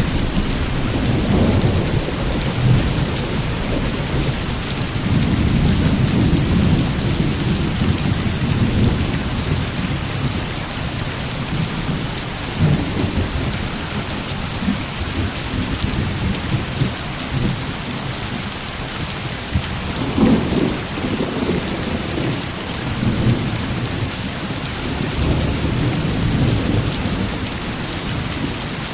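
Heavy rain falling steadily, with low rolls of thunder rumbling repeatedly, strongest about five to nine seconds in and again around twenty seconds in.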